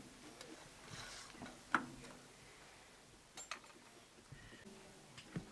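A few faint, sharp metallic clicks and taps from hands working at the exposed piston of a Saviem air compressor, spaced out with quiet between them.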